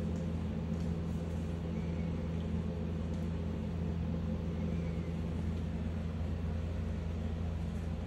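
A steady low mechanical hum, constant in pitch and level throughout.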